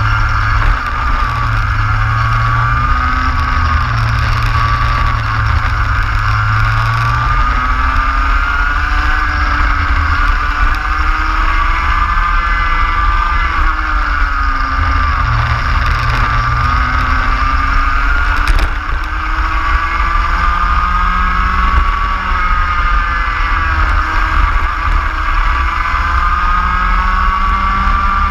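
Racing kart engine at full race pace, its note climbing in long sweeps and dipping back several times as the driver brakes and accelerates through the corners.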